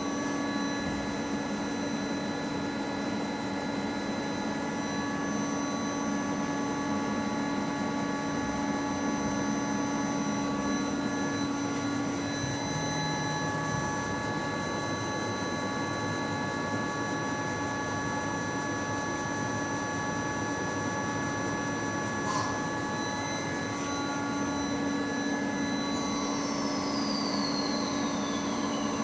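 CNC lathe running steadily with its spindle turning, a steady machine hum and several high whines, during a manual facing pass at reduced feed. A single click comes about 22 seconds in, and a falling whine starts near the end.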